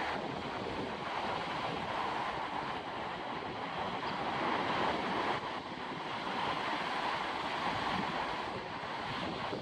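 Ocean surf breaking and washing up a sandy beach, a steady rush that swells gently, with wind blowing across the microphone.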